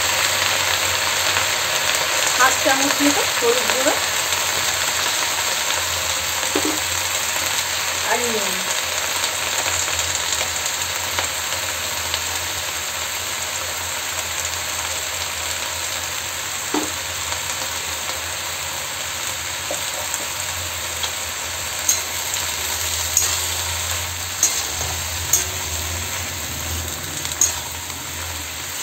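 Freshly washed mustard greens sizzling steadily in hot oil in a kadai. Near the end a metal spatula clicks and scrapes against the pan several times as the greens are stirred.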